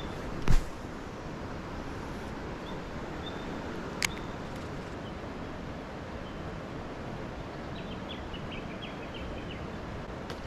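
Steady outdoor background noise by a river, with faint high bird chirps here and there, a single thump about half a second in and a sharp click about four seconds in.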